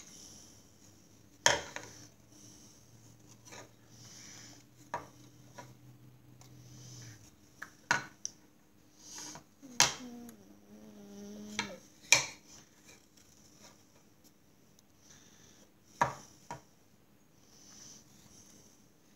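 Handling noise of a wooden lacing board and pipe cleaner: scattered sharp knocks and clicks as the board is turned and bumps the tabletop, with soft rubbing between them as the pipe cleaner is pushed through the holes.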